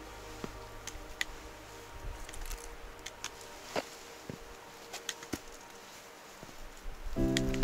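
Trekking poles tapping and boots scuffing on a granite slab during a steep scramble: scattered, irregular clicks and scrapes. Music comes in loudly near the end.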